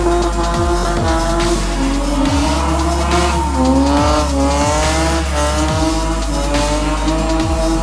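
Drift car sliding at high revs with its tyres squealing: a high, wavering tone that dips briefly a couple of times. It is mixed with electronic music that has a heavy bass beat.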